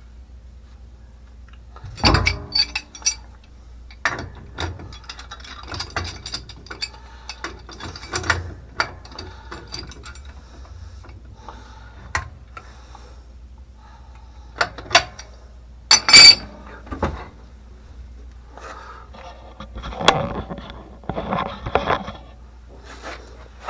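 Irregular metallic clicks, knocks and scrapes of hand tools working on water pump pipe fittings, with the sharpest knocks about two seconds in and again near the middle.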